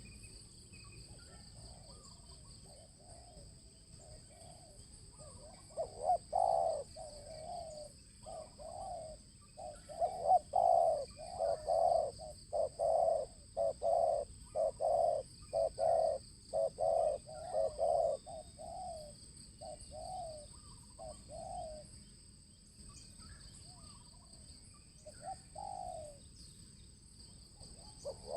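Spotted dove cooing. The coos come in a rapid repeated run starting about six seconds in and lasting over ten seconds, then a few scattered coos near the end.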